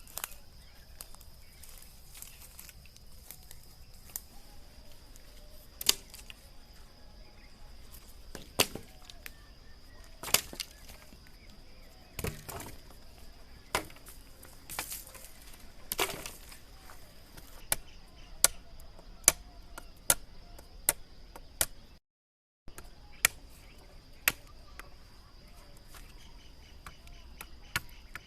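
A blade chopping into wood: sharp single strikes a second or two apart, coming faster, about one to two a second, in the last ten seconds.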